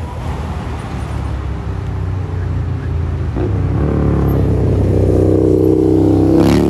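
A motor vehicle engine running and coming closer, growing steadily louder, with its pitch climbing over the last couple of seconds.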